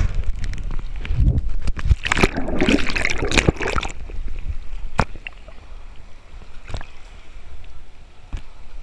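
Water splashing and sloshing right against the microphone, dense and loud for about the first four seconds, then settling to quieter lapping with a few sharp knocks.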